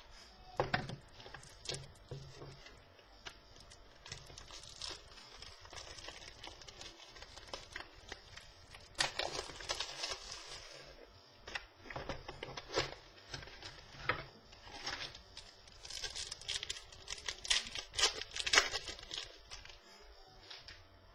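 Packaging of a box of trading cards being torn open and handled: irregular crinkling and tearing of wrappers, busier about nine seconds in and again in the last few seconds.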